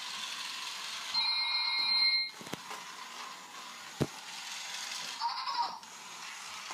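Zhu Zhu Puppies electronic toy dog sounding a steady high electronic beep tone for about a second. Then come two sharp knocks as the toy bumps on the tile floor, and a short chirp near the end.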